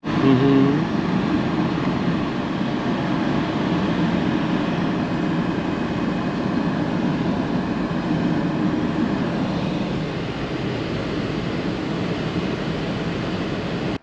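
A car driving along a road, with steady tyre and engine noise heard from inside the moving car.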